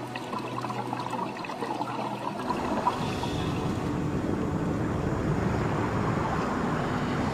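A steady rushing, water-like noise that swells about two and a half seconds in and grows slowly louder, replacing a low held note and faint crackling.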